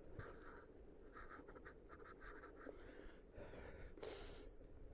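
Near silence with faint, irregular scratchy rustling over a low rumble, and a short hiss about four seconds in.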